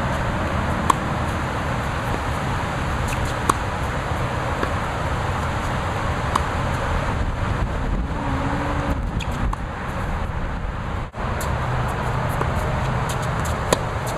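Tennis racket striking the ball in a groundstroke rally: short sharp pops about every two and a half seconds, over a steady rumbling background noise.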